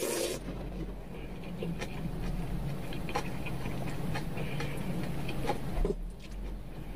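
A person slurping a short mouthful of cold soybean-broth noodles right at the start, then chewing with small wet clicks over a low steady hum.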